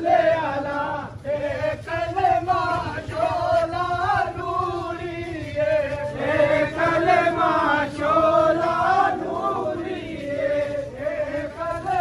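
A group of men chanting together in unison, in repeated phrases that rise and fall: the chant of a funeral procession as the coffin is carried.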